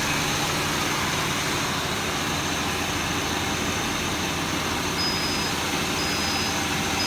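PT Cruiser engine idling with the air conditioning running on max, a steady rush of blower and engine noise. About five seconds in, three short high beeps sound about a second apart.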